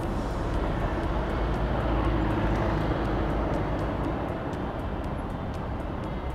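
Street traffic: motor vehicles running past with a steady low rumble that eases after about four seconds.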